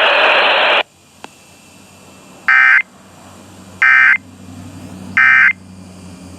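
Emergency Alert System end-of-message tones: three short, identical digital data bursts a little over a second apart, the SAME code that closes the alert. Before them, a loud hiss cuts off just under a second in.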